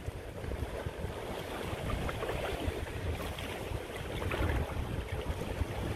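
Wind buffeting the microphone in low, uneven gusts over the steady wash of sea waves.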